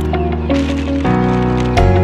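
Background music with a steady beat over held chords, with the chord changing about halfway through.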